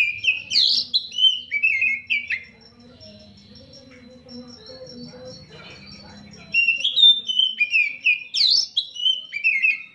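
Oriental magpie-robin singing: a run of short, clear whistled notes with quick up-sweeps and falling slurs, a pause of about four seconds, then a second run starting about six and a half seconds in.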